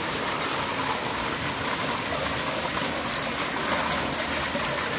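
Water gushing steadily from a white plastic pipe outlet and running across a wet concrete floor.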